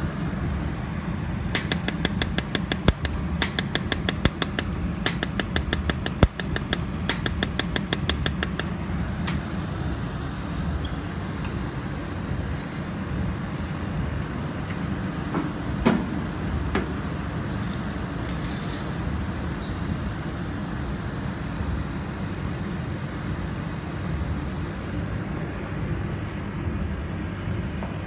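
Jewelry laser welding machine firing pulses: a rapid series of sharp ticks, several a second, in runs for about seven seconds, then a few single ticks later, over a steady low hum.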